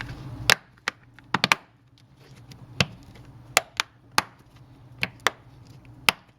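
Back cover of a Kindle Fire HDX tablet being pressed on around its edges, its clips snapping into place in about a dozen sharp, irregular clicks.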